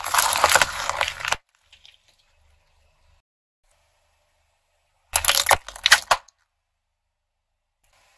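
Objects crushed under a car tyre: a long crackling crunch as the tyre flattens a balloon-tipped metal tube, lasting about a second and a half, then silence. About five seconds in comes a second, shorter crunch in two bursts.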